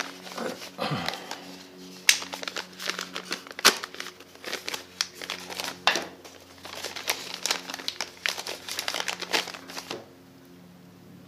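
Clear plastic packaging crinkling and crackling in quick irregular bursts as it is handled and opened to take out new respirator filter cartridges; the crinkling stops near the end.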